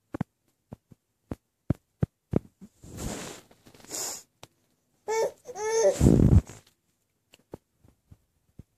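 Five-and-a-half-month-old baby making short grunts and breathy fussing sounds, then a brief whiny cry about five seconds in: a fake cry to get attention and play. A loud low bump comes right after the cry.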